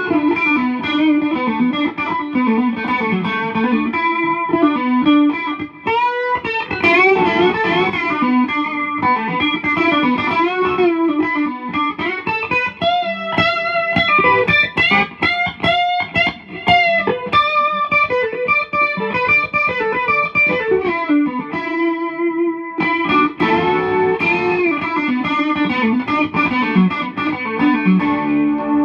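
1980s Vester (Young Chang) super strat electric guitar played through a Peavey VIP-3 amp's clean channel, playing a run of single-note lead lines with notes that bend and waver in pitch.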